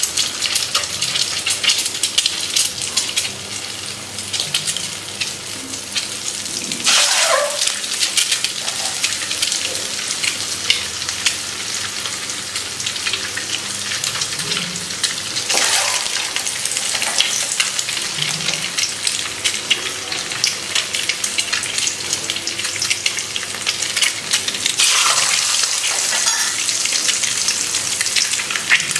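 Hot oil crackling and sizzling around whole boiled eggs, pricked with a fork, frying in a kadai. The sizzle swells sharply three times, as more eggs are dropped into the oil.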